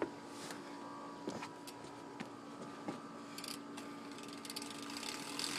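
Rear cassette hub of a BMX bike's Verde Regent wheel ticking quietly as the wheel freewheels, the pawls clicking against the ratchet; the sealed hub is not very loud.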